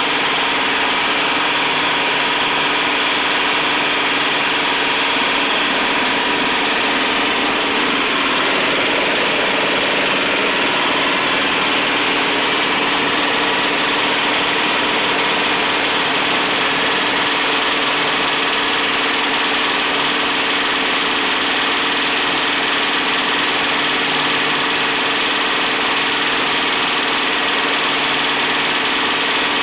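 Single-screw palm oil press running steadily under power, with its drive engine going at a constant pace: an even machine noise with several steady tones.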